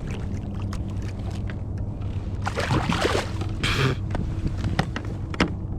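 Small taps and knocks from handling gear on a fishing kayak over a steady low hum, with two short noisy bursts about halfway through.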